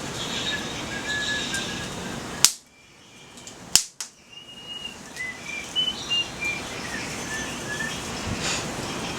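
A bird singing a run of short whistled notes over a steady rustling hiss of wind. Two sharp cracks come about two and a half and four seconds in, and the background hiss drops out briefly between them.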